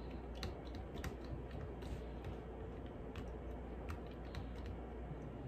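A spoon stirring a thick mixture of honey and lemon juice, its edge clicking lightly and irregularly against the container a few times a second.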